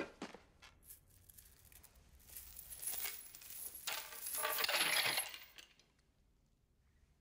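A metal chain clinking and rattling: a sharp metallic hit at the start, then a scraping, jangling rattle that swells for about three seconds and dies away.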